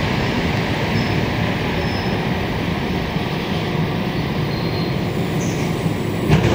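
MR-63 rubber-tyred metro train heard from inside the car as it slows to a stop at a station: a steady rumble of the running gear with a few faint, brief high squeals. A sharp clack comes near the end.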